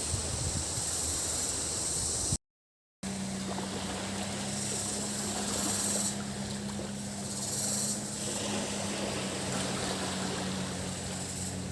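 Waves washing on a beach, with cicadas buzzing in the high register that comes and goes. After a short dropout about two and a half seconds in, a steady low engine hum joins the surf.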